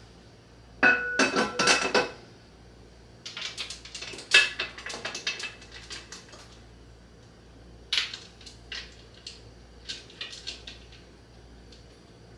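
Metal lid of a pressure canner set down onto the pot with loud ringing clanks, followed by a string of metal clinks and clicks as the clamp knobs around the rim are swung into place and tightened.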